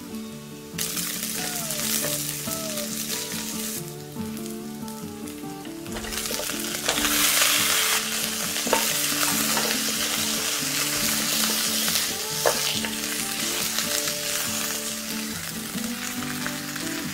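Pork hocks with garlic and onion sizzling in hot oil in a nonstick pan while being stirred and turned with a spatula. The sizzling gets louder about seven seconds in, with a couple of sharp knocks of the spatula against the pan.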